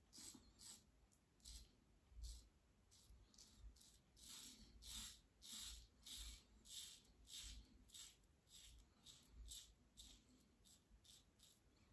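Edwin Jagger 3ONE6 safety razor with a Rapira blade scraping through beard stubble in many short strokes, about two a second. It is a faint rasp, the sign of the blade cutting hair.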